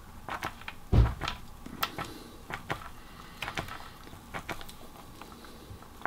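Small irregular clicks and taps of a pen working on paper on a tabletop, with one dull thump about a second in.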